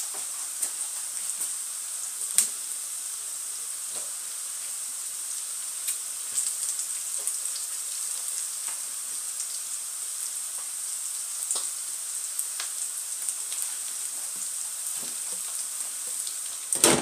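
Beef tripe frying with onions and spices in its own fat, a steady sizzle with scattered pops and crackles. Near the very end comes one sharp knock, as a glass lid is set on the pan.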